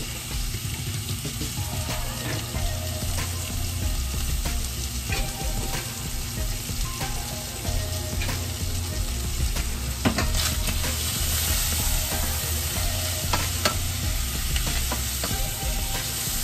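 Sliced onions and carrots frying in oil in a stainless steel skillet: a steady sizzle, with scattered clicks of a wooden spoon stirring against the pan. The sizzle grows louder and brighter about ten seconds in.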